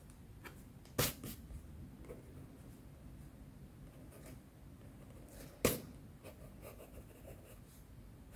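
Pencil scratching faintly on sketchbook paper while sketching. Two sharp clicks, the loudest sounds, come about a second in and again about five and a half seconds in.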